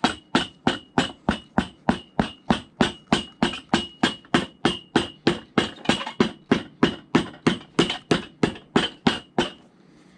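Cobbler's hammer tapping along a cowboy boot's newly stitched leather welt, about four quick blows a second, each with a slight metallic ring. The blows press the welt seam together, and they stop near the end.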